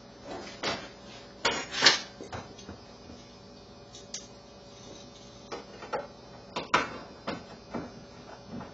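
Irregular clicks, knocks and clatters of tools and small parts being handled on a workbench, loudest about two seconds in.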